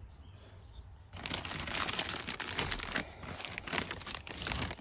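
Clear plastic parts bag crinkling and rustling as a hand handles it, starting about a second in and dying away near the end.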